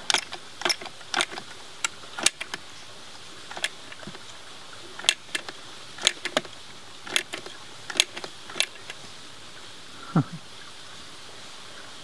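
Caulking gun loaded with a tube of silicone sealant, its trigger clicking as it is squeezed again and again: about fifteen sharp clicks at irregular spacing. The tube's inner seal is still unpierced, so no sealant comes out.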